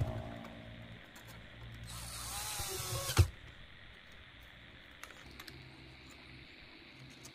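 A small electric motor whirs briefly for about a second, its pitch wavering, and stops with a sharp click; a steady hum fades out in the first second.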